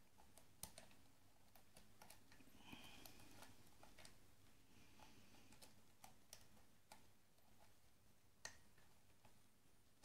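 Faint small metal clicks and scrapes of a hook pick working the pins of an ABUS rim cylinder under tension, the cylinder held in a deep false set. The clicks are irregular, with a sharper one near the start and the loudest about eight and a half seconds in.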